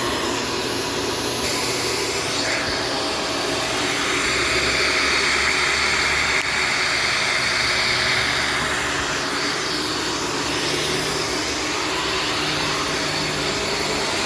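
Self-cleaning Shark vacuum cleaner running steadily, its motor and rushing air making a constant drone, with the rushing sound swelling a little through the middle.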